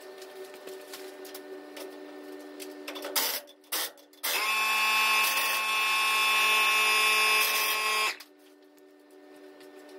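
Air impact wrench on the truck's rear wheel lug nuts: two short bursts about three seconds in, then one long steady run of nearly four seconds that stops sharply around eight seconds in. A steady low hum runs underneath.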